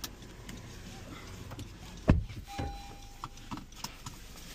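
A single heavy thump about two seconds in, followed by a short steady electronic beep lasting about a second, over a low background rumble.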